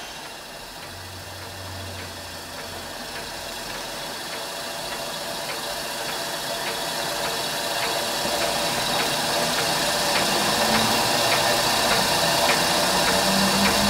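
Scratch-built horizontal Hero engine (aeolipile) running fast under steam: a steady whir and hiss from the spinning drum and its steam jets, with a faint regular tick, growing gradually louder. It is running freely now that oil has worked into its bearings.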